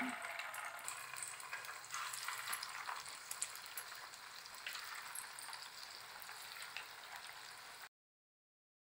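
Bottle-gourd kofta balls deep-frying in hot oil in a kadai: a steady sizzle with fine crackles, swelling briefly about two seconds in and again near five seconds. The sound cuts off suddenly about a second before the end, leaving dead silence.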